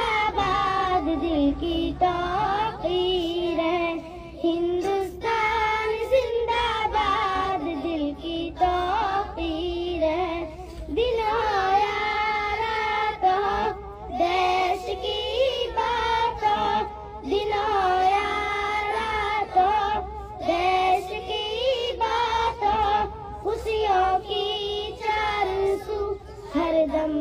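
A patriotic Hindi-Urdu song with music, sung by young girls' voices with wavering, held notes throughout.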